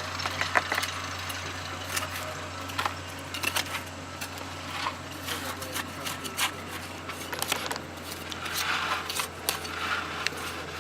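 Irregular clinks and scrapes of hand tools working in dirt and stone at an excavation, over a steady low hum.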